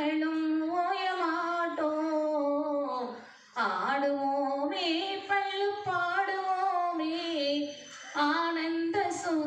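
A woman singing a Tamil song into a handheld microphone, holding long notes that bend in pitch. She breaks off briefly about three and a half seconds in and again near eight seconds.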